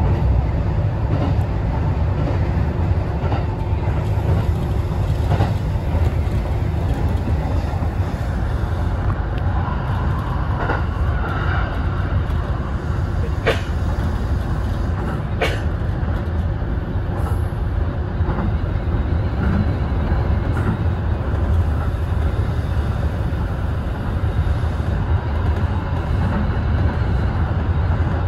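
Kintetsu express train running at speed, heard from inside the front car: a steady low rumble of wheels on rail, with a few sharp clicks about halfway through.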